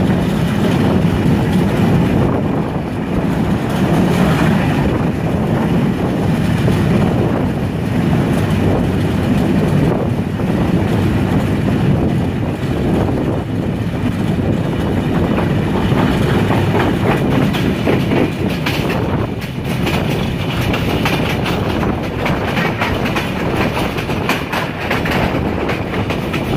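Passenger train running at speed, heard from an open coach window: a steady rumble of wheels on the track, with clickety-clack over the rail joints.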